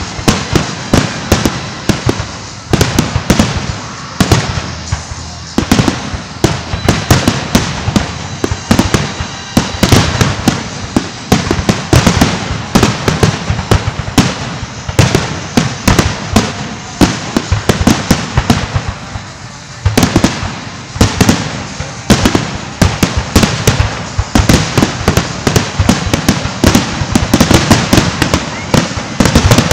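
Fireworks finale: aerial shells bursting in rapid, near-continuous succession, several bangs a second, over a steady crackle. There is a brief lull about two-thirds of the way through before the bursts build again.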